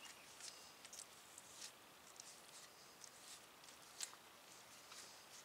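Near silence, with a few faint soft clicks and scuffs from hands working grease around the rubber boot of a brake caliper bracket's slide pin; the sharpest click comes about four seconds in.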